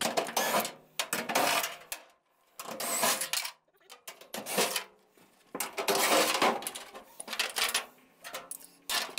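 Short bursts of metallic clinking and rattling, about six of them with pauses in between: tools and loose hardware being handled around the cab's gas tank.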